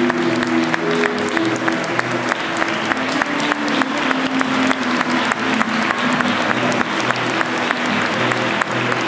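Audience applauding, many quick claps, over keyboard music playing held notes.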